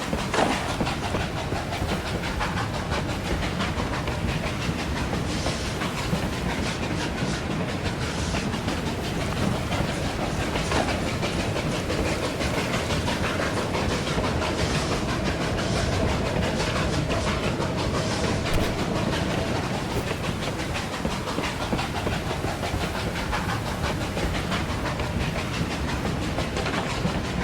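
Hand-made foley of a steam locomotive running: a continuous rattling clatter with hiss, and a faint held tone for several seconds midway.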